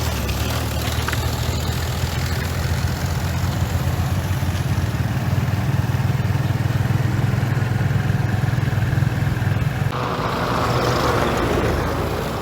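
A Komatsu bulldozer's diesel engine runs under steady load with a loud, low drone. About ten seconds in, the drone cuts off abruptly and a rushing hiss takes its place.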